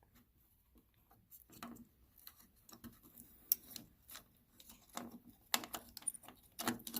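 Faint, irregular clicks and taps of small plastic and metal pieces being handled, the parts of a broken-open circuit breaker being turned over and examined; a sharper click about three and a half seconds in and a cluster of taps near the end.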